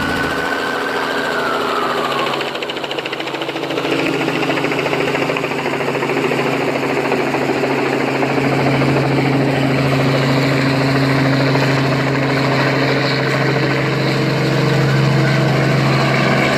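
Small helicopter flying low overhead: a steady droning hum of its engine and rotor that grows louder about four seconds in and again around eight seconds. A police siren wail falls and stops in the first two seconds.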